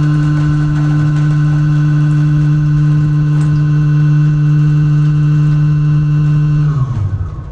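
Waste compactor container's drive running with a steady, loud hum while its press plate pushes forward under the bags. Near the end the hum drops in pitch and stops as the drive shuts off.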